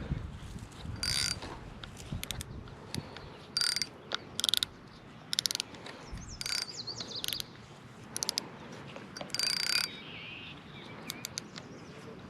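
Spinning reel cranked in short spurts, a whirring, clicking mechanism turning for under half a second at a time with pauses between, as line is retrieved. Small birds chirp briefly in the middle and near the end.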